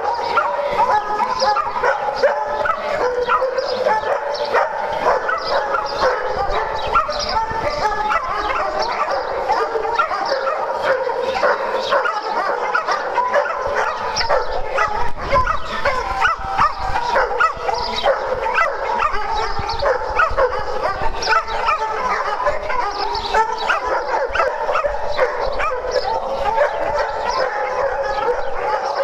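Many dogs barking at once, a steady din of overlapping barks with no let-up.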